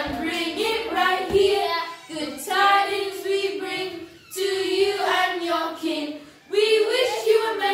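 Children singing a Christmas song together, in phrases separated by short breaths.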